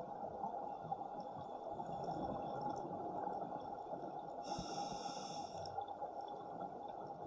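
Breathing through a scuba regulator underwater: a steady dull rush, with one hissing breath lasting about a second, a little past halfway.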